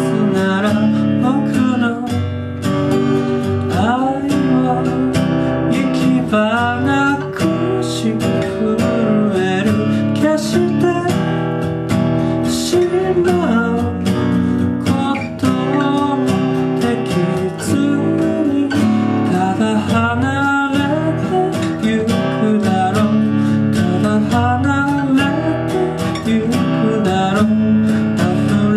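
Music: a song carried by strummed acoustic guitar at a steady beat.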